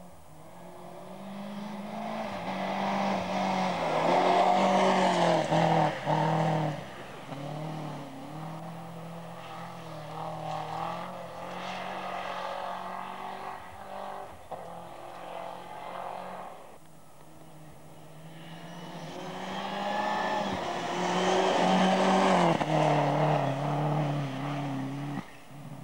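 Rally car engines at full throttle on a gravel special stage, passing at speed. The engine pitch climbs and drops with gear changes. It is loudest about four to six seconds in and again around twenty-one to twenty-three seconds.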